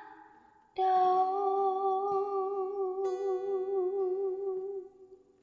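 The closing held note of an acoustic song: a woman's voice sustains one long note with a gentle vibrato over a strummed acoustic guitar chord. The guitar strikes another chord partway through, and the note and chord fade out just before the end.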